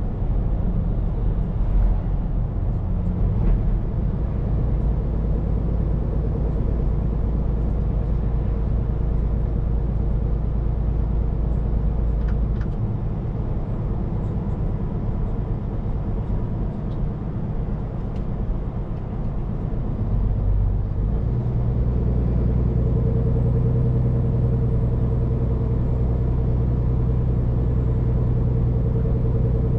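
Scania P410 truck's diesel engine running steadily under road noise, heard inside the cab. About two-thirds of the way through, the engine note steps up into a louder, steadier hum as it pulls harder.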